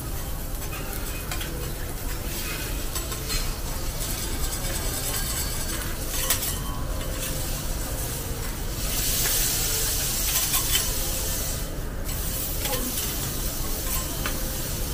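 Beef sizzling on a hot teppanyaki steel griddle while metal spatulas scrape, tap and flip it, giving many sharp clicks over a steady hiss. The sizzle swells louder for a couple of seconds about nine seconds in.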